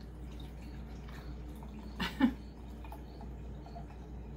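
Red wine poured from a cardboard wine carton into a glass, a faint trickle with one short louder sound about two seconds in, over a steady low hum.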